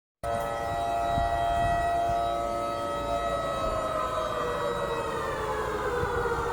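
Civil defense curfew siren wailing, a chord of several tones that holds steady and then slowly falls in pitch. The audio drops out for a moment at the very start.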